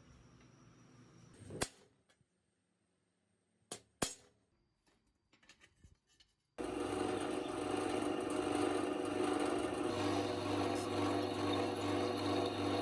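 A few sharp knocks, then about halfway through a steady, loud machine running sound starts abruptly.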